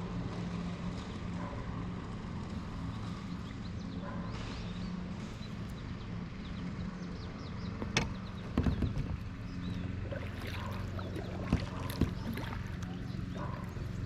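Fishing kayak on the water: a steady low hum runs throughout, with a few sharp knocks and clicks about eight seconds in and again near twelve.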